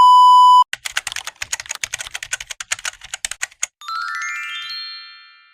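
A loud steady beep lasting just over half a second, then about three seconds of rapid keyboard typing clicks, then a quick rising run of chiming notes that rings on and fades away: edited-in sound effects.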